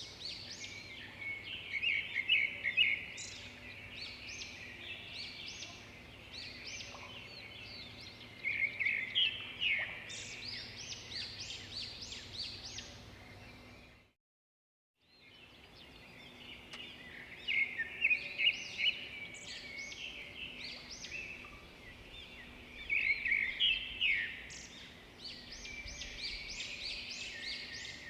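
Birds chirping and singing in short bursts of quick, high chirps, over a faint steady hum. The sound fades out to silence about fourteen seconds in and fades back in a second later.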